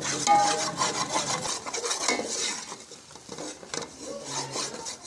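Slotted metal spoon stirring and scraping gram flour as it roasts in oil in a metal pot, with irregular clinks of the spoon against the pot.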